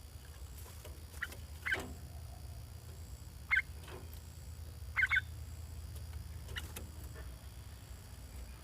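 Caged bulbuls giving a handful of short, sharp chirps, a couple in quick pairs, over a steady low rumble.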